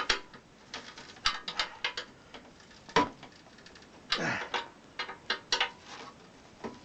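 Metal tools and parts clinking and knocking on a Buran snowmobile's steering during a repair, in a series of separate clicks with a louder knock about three seconds in and a short metallic scrape just after.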